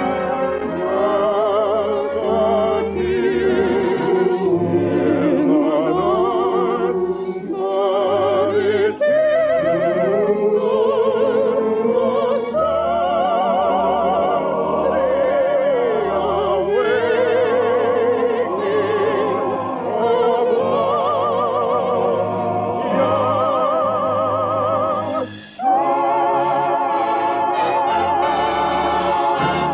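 Operatic singing with strong vibrato over orchestral accompaniment, heard through the narrow, dull sound of an old broadcast recording. About 25 seconds in the music breaks off for a moment and a held chord follows.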